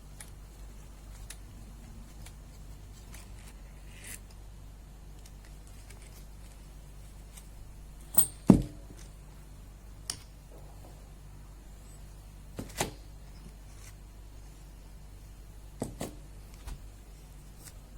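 Scattered sharp clicks and knocks of metal tools and parts being handled, a few at a time, with the loudest knocks about eight seconds in and others near ten, thirteen and sixteen seconds, over a steady low hum.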